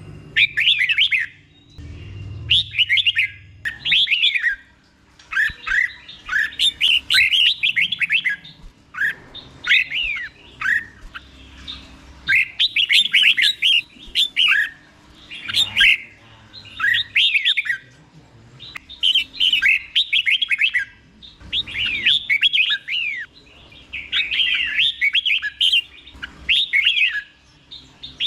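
Red-whiskered bulbul singing its doubled ('เบิ้ล') song, the style used to tutor caged bulbuls: short phrases of quick, swooping whistled notes, one after another with brief pauses between them.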